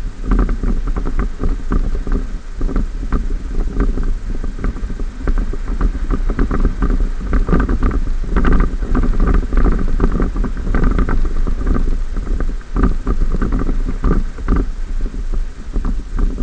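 Ford F-150 pickup with a 5.0 L V8 driving over sand: a steady low rumble with wind on the microphone, and many irregular knocks and rattles.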